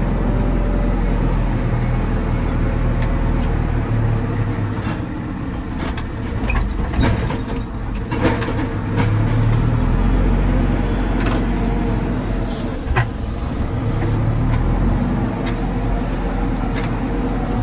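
JCB 4CX backhoe loader's diesel engine working under load while loading a truck, its revs rising and falling as the loader bucket is worked. A few sharp knocks and clanks come through over the engine.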